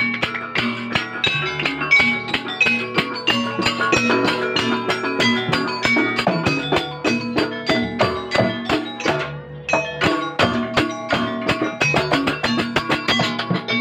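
Live instrumental music: a fast, steady run of percussion strokes under struck and plucked melodic notes, with no singing.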